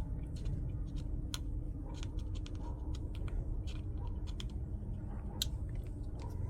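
Small irregular clicks and scrapes of a hand tool working the hole in a 3D-printed plastic part, opening it up wider.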